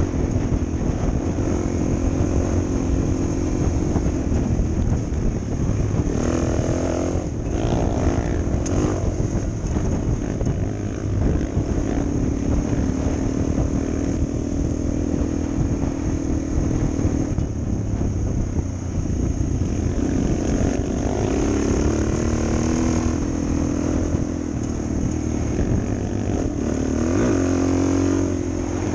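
Suzuki DR400 dual-sport motorcycle's single-cylinder four-stroke engine running while riding. The revs climb and drop again several times as the throttle opens and the gears change.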